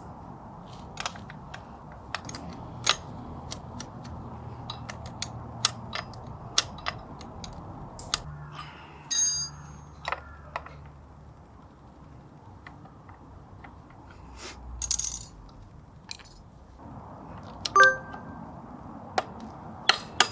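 Scattered sharp metallic clicks and clinks of hand tools being handled on metal. A ringing clank about nine seconds in and another near the end.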